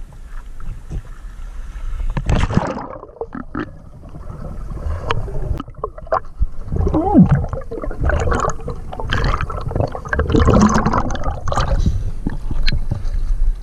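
River water splashing and sloshing around a swimmer, with gurgling and bubbling heard underwater through the middle of the stretch and scattered sharp clicks and knocks.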